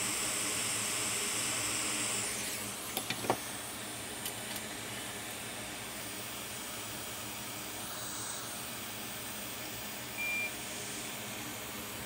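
Hot air rework station blowing with a steady hiss that drops away about two seconds in. A few light clicks follow, and near the end there is a single short high beep.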